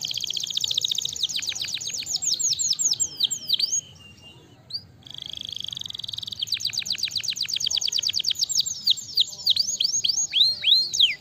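Domestic canary singing in rapid rolled trills of quick falling whistles. The song breaks off briefly about four seconds in, then resumes with a held note and more fast trills.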